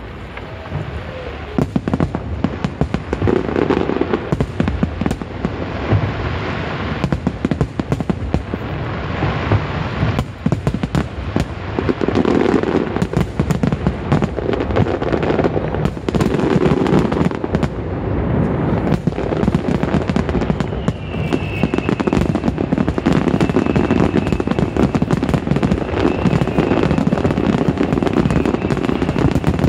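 A fireworks display: a dense, continuous run of crackling and popping bursts with heavier bangs, growing fuller about twelve seconds in. A thin, steady high whine joins about two-thirds of the way through.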